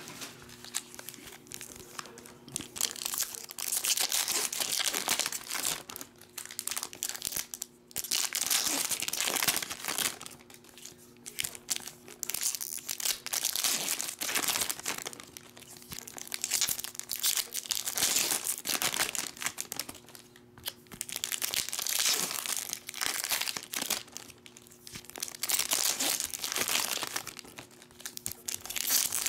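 Foil trading-card pack wrappers being torn open and crinkled by hand, in repeated bursts of crackling rustle every few seconds.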